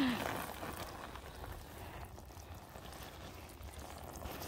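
Water pouring from a metal watering can's spout onto weed-barrier fabric and soil, a faint steady splashing.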